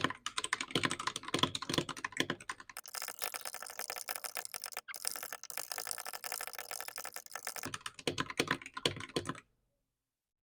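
Fast, continuous typing on a freshly built mechanical keyboard fitted with milky yellow key switches, a dense clatter of keystrokes that stops abruptly about nine seconds in.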